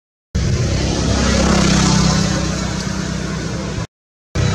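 A motor vehicle engine running steadily with a broad hiss, cutting off abruptly to dead silence for about half a second near the end before starting again.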